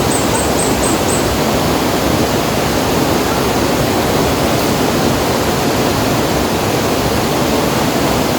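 Steady, loud rushing noise, with a quick run of about six short, high chirps in the first second.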